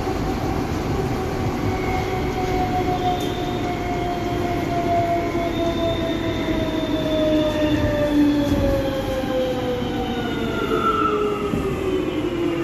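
Inside a Lille VAL driverless, rubber-tyred metro car: a steady rumble of the running gear under an electric motor whine that falls steadily in pitch as the train slows for a station.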